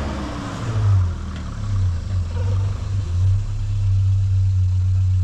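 Car engine running with a low, steady rumble that swells and eases slightly.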